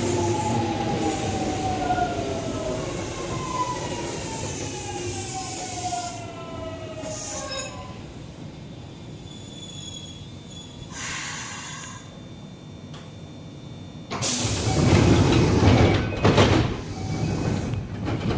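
Kintetsu electric train braking to a stop: its motor whine, several tones together, falls steadily in pitch over the first eight seconds as it slows. A short hiss follows about eleven seconds in, then a louder rush of noise from about fourteen to seventeen seconds.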